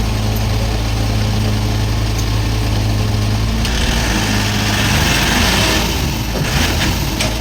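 Tata Hitachi Zaxis 33U mini excavator's diesel engine running steadily. About three and a half seconds in, a rushing hiss joins it for a couple of seconds, and a few short knocks come near the end.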